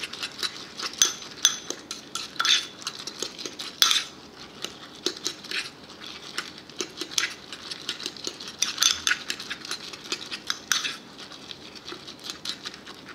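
A metal spoon stirring oats into beaten eggs in a ceramic bowl, clinking and scraping against the bowl in quick, irregular clicks.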